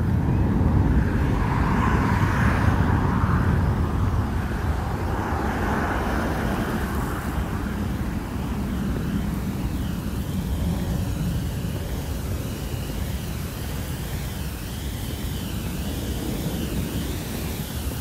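An airplane passing overhead: a deep, steady rumble, loudest in the first few seconds and then slowly fading. In the second half, birds call faintly over it.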